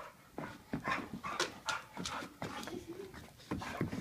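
A puppy and a larger dog playing: scuffling, with quick irregular clicks and knocks of paws and claws on the rug and floor, and panting.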